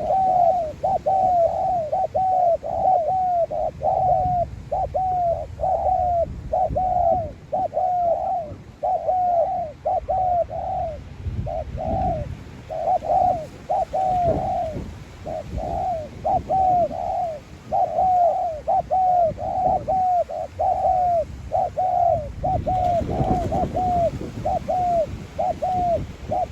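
Spotted dove cooing: a long unbroken series of short, arched coos, about one and a half a second.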